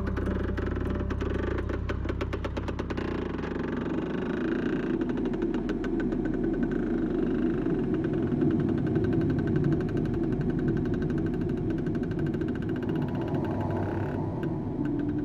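A motorcycle engine running under load as it pulls a wooden boat across sand. It has a fast, even firing beat that turns rougher and noisier after about four seconds.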